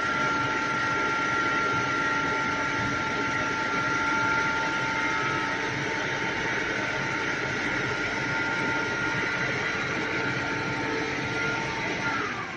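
A fire robot's water cannon shoots a high-pressure jet with a steady rushing and a steady high whine. Near the end the whine falls in pitch and the sound dies down as the flow is cut back.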